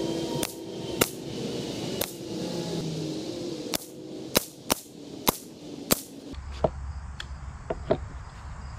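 Ruger 10/22 semi-automatic .22 LR rifle with a Kidd 20-inch fluted stainless barrel firing a group of SK Standard Plus: eight sharp shots at irregular gaps of about half a second to a second and a half, the last about six seconds in. A few lighter clicks follow.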